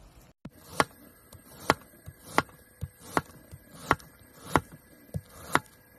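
Chef's knife slicing a shallot on a plastic cutting board: about ten sharp knocks as the blade strikes the board, one or two a second, at an uneven pace.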